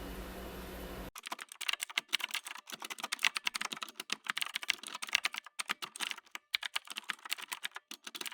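A steady low hum for about a second, then a sudden cut to rapid, irregular typing on a keyboard, a fast run of clicking keystrokes.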